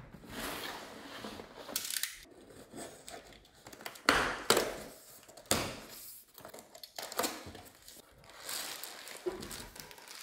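Cardboard box being opened by hand: a box cutter slitting the packing tape, the flaps tearing free and being folded back, in a run of irregular rustling and ripping noises, the loudest about four to five seconds in. Near the end a plastic bag rustles as it is lifted out of the box.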